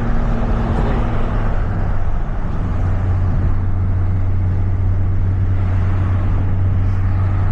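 Audi S4's supercharged V6 engine running under way, heard over road noise, with its note dropping a little about two seconds in and then holding steady. It runs smoothly on new spark plugs, no longer misfiring.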